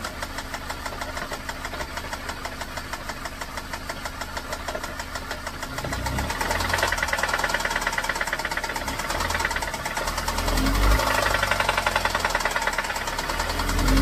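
Ford Focus four-cylinder engine running with a fast, steady knocking from its bottom end, revved up from about six seconds in and again near the end. This is rod knock, a worn connecting-rod bearing, which the owner puts down to running the engine low on old oil.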